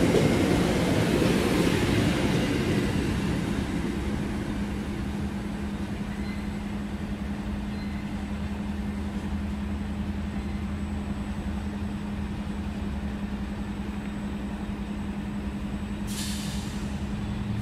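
Amtrak passenger train's last car rolling past, its wheel rumble fading away over the first few seconds. A steady low hum remains, and a brief hiss comes near the end.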